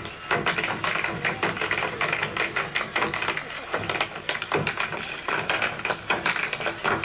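Clog dancers' metal-tapped shoes striking a stage floor in fast, rhythmic patterns, several dancers together, with no music.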